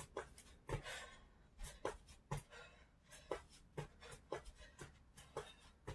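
Sneakered feet landing on an exercise mat during plank jacks: a quick tap each time the legs jump apart and back together, about two a second.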